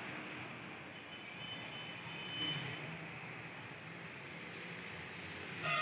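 Steady background noise of street traffic, with a short, louder sound near the end.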